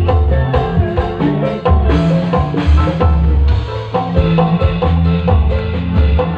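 Loud music with a heavy bass line, drums and pitched melodic notes over a steady beat.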